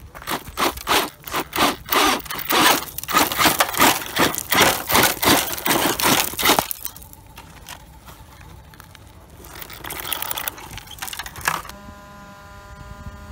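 Gravel crunching and scraping in quick, uneven strokes for about six and a half seconds, then quieter. A steady whine with several pitches starts near the end.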